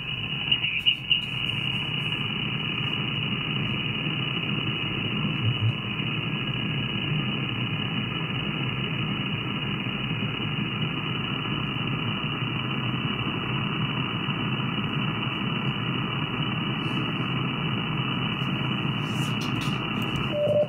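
SDRplay RSP2 software-defined radio receiver giving steady static hiss with faint steady whistles and no station audible. A few sharp clicks sound about a second in.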